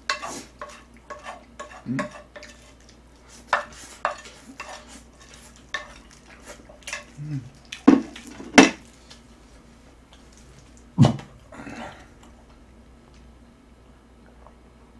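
A spoon and chopsticks clinking and scraping against a ceramic plate: irregular clicks and scrapes, with a few louder clacks about eight and eleven seconds in. The last few seconds are quieter.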